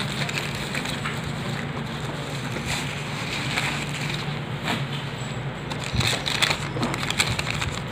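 Crinkling and rustling of packaging handled by hand: plastic bubble wrap and a crumpled paper invoice, with sharper crackles about six seconds in. A steady low hum runs underneath.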